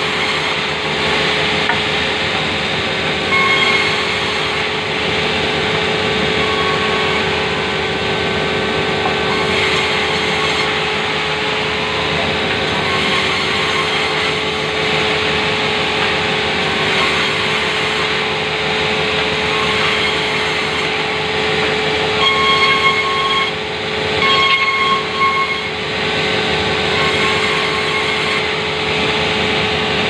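Electric band saw running steadily while it rips planks into thin boards, with a steady motor hum. Short, higher whines come as the blade cuts through the wood a few times, loudest about two-thirds of the way in.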